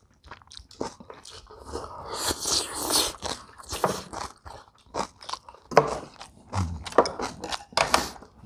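Close-miked eating: crunchy chewing and biting of kimchi and bibimbap, with short clicks of utensils against bowls and a longer noisy stretch about two seconds in.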